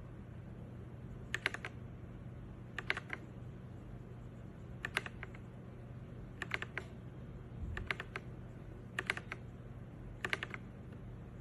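Mechanical keyboard with red linear switches (ZIYOU K3) being typed on in short bursts of two to four keystrokes, about every second and a half, over a faint low hum.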